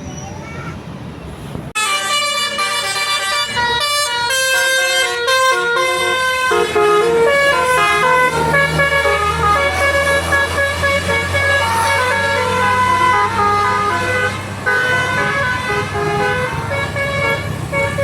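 Bus 'telolet' multi-tone air horn playing a quick stepped melody, starting suddenly under two seconds in and running on as a continuous tune.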